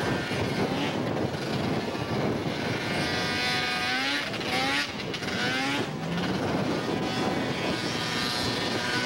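Small snowmobile engines running. One is revved several times, its pitch sliding up with each blip.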